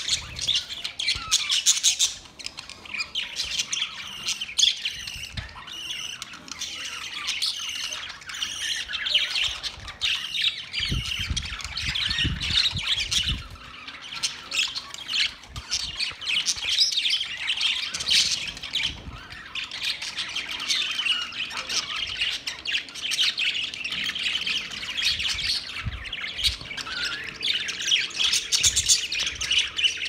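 A large flock of budgerigars chattering continuously, many birds warbling, chirping and squawking at once.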